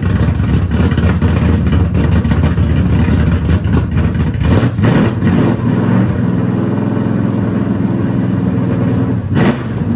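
Small-block 360 V8, naturally aspirated, running as the car is driven; its pitch climbs about four seconds in, then holds a steady note. A short burst of noise comes near the end.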